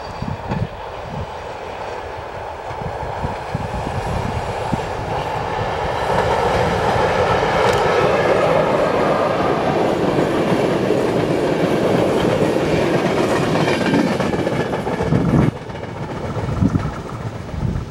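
HŽ series 1142 electric locomotive hauling an express of passenger coaches passing at speed: the train noise rises as it approaches, stays loudest for several seconds as the coaches go by, then drops off suddenly near the end.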